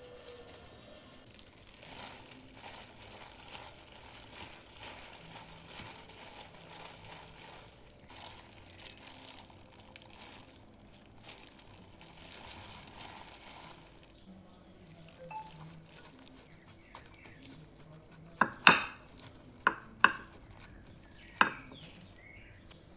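Plastic food-prep glove crinkling and crumbs rustling as a hand squeezes and mixes crushed biscuit crumbs in a bowl. Near the end come about four sharp knocks, the loudest sounds here.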